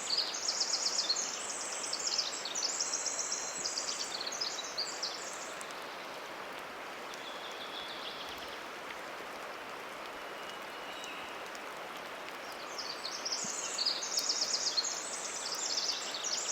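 Pacific wren singing its long, high, rapid tumbling song of trills, in two bouts of about five seconds with a pause between. Faint single held whistles, typical of a distant varied thrush, sound in the pause, over a steady hiss of dripping rainwater.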